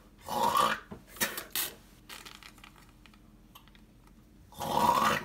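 Spitting noises from a ventriloquist figure's spit gag: a spluttering burst just after the start and a longer, louder one near the end, with a couple of short puffs and faint clicks between.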